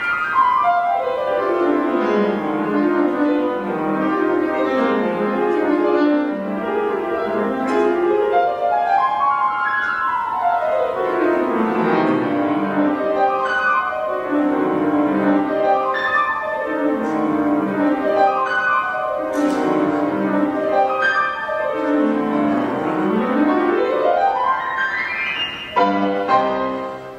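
Woodwind quintet of flute, oboe, clarinet, horn and bassoon with piano, playing fast scale runs that sweep up and down over and over. A final rising rush and a few short chords come near the end.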